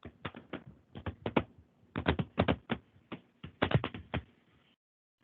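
Typing on a computer keyboard: irregular quick clusters of key clicks that stop about four seconds in.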